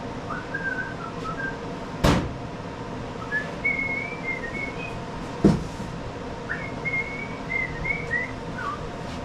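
Someone whistling a wandering tune in short phrases, with two sharp knocks about two and five and a half seconds in, the second the loudest.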